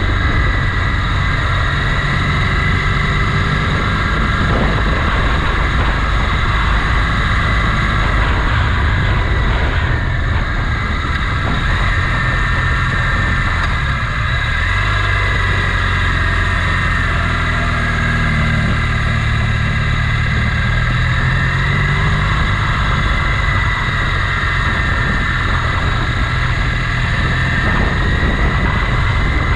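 Motorcycle engine running while riding, under a steady rush of wind noise. The engine pitch rises and falls a few times about halfway through.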